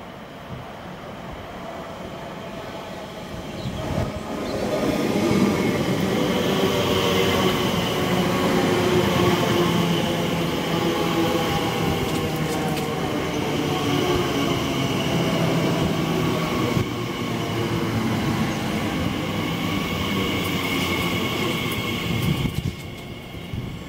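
A Class 345 Aventra electric multiple unit pulls into the platform. It runs at close range, its electric whine and hum falling slowly in pitch as it slows. The sound builds over the first few seconds and drops away sharply near the end.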